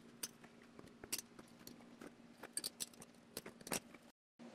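Layered 1084 and 15N20 steel bars clinking against each other as they are stacked by hand into a billet: a string of light metallic clicks and taps. The sound cuts out briefly near the end.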